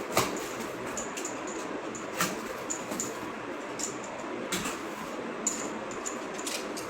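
Packaging being opened by hand: rustling and scraping with a few sharp clicks, over a steady hiss.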